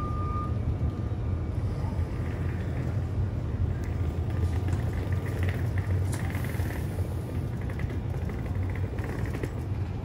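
Steady low rumble of a running vehicle, with a short high beep at the very start.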